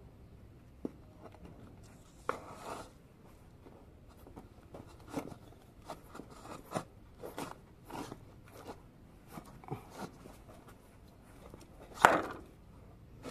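Irregular light clicks, scrapes and knocks of metal parts and hand tools being handled while working on a bus brake servo, with one louder clank near the end.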